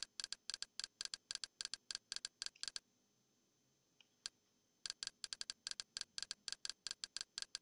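Kodi's menu navigation tick sound, repeating rapidly at about six or seven ticks a second as the highlight scrolls down the add-on list. It stops for about two seconds in the middle, with one lone tick, then starts again at the same rate.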